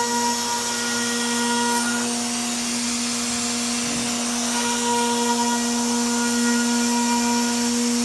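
C.R. Onsrud 145G12 CNC router surfacing a live-edge wood slab: the spindle runs with a steady whine, its higher overtones fading about two seconds in and returning about halfway through, over a steady rushing noise.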